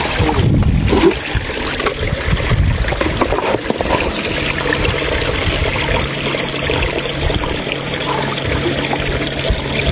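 Stream water trickling and running over rocks, with a few short splashes and knocks in the first seconds as hands dig through a shallow pool among stones.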